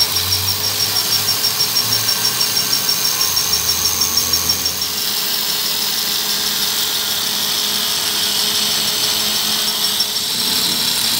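Angle grinder grinding the steel of a truck rear axle shaft near its flange while the shaft turns in a lathe, a loud high grinding whine. For the first half it pulses about four to five times a second, then it evens out into a steadier grind.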